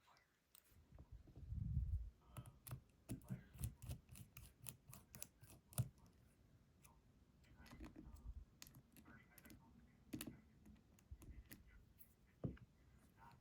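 Quiet, irregular clicks and ticks of small metal lock parts being handled: pins and springs being taken out of a challenge lock and set down. A soft low thump comes just before two seconds in.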